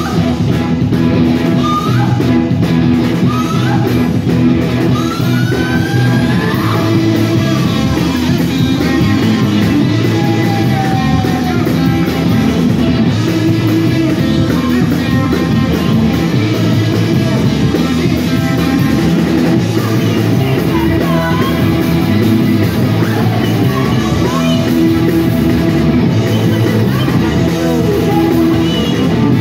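Live rock band playing loudly: guitar, drums and vocals.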